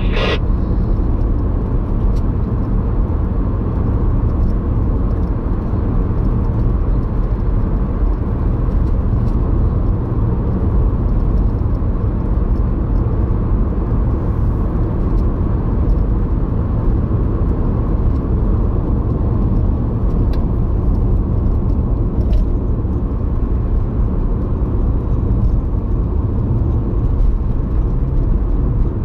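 Road noise inside a car's cabin at a steady cruise of about 45–50 mph: a deep, even rumble of tyres and engine that holds steady throughout.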